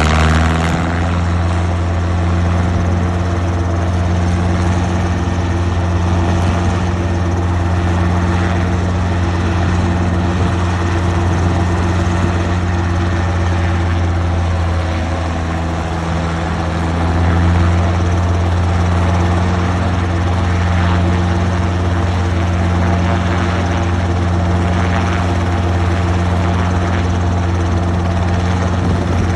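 Helicopter running steadily: a loud, unbroken low drone of engine and rotor that holds level throughout.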